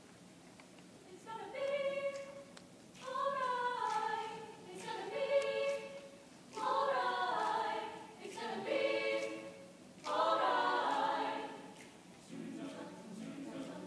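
Chamber choir singing in several short phrases with brief pauses between them, starting a little over a second in and growing softer near the end.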